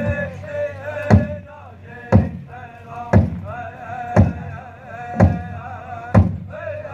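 Powwow drum group singing a flag song: voices with a wavering pitch over a large drum struck in slow, heavy single beats about once a second, six in all.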